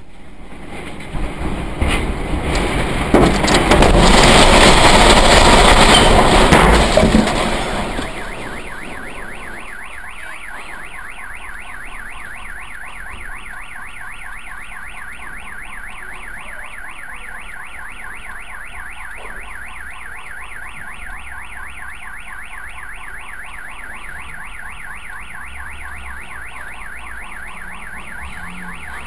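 A loud rush of wind for several seconds, with a few sharp knocks in it. After that a car alarm warbles steadily on and on.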